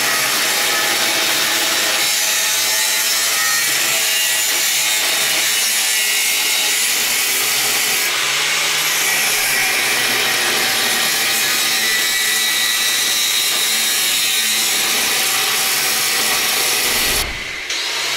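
Angle grinder running steadily under load, its disc cutting into metal and throwing sparks; the sound dips briefly near the end.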